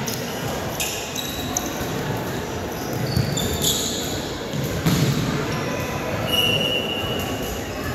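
Gym ambience during an indoor soccer game: a ball being kicked and bouncing on the hardwood court, with a sharper thud about five seconds in, short squeaks of sneakers, and spectators talking, all echoing in the hall.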